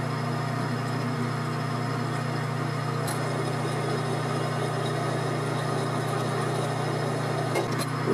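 Benchtop metal lathe running with a steady hum while a twist drill in the tailstock chuck bores into spinning 304 stainless steel stock.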